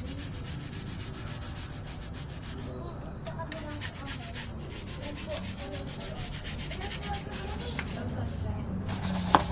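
Bicycle being scrubbed clean: continuous scratchy rubbing strokes, with one sharp knock near the end.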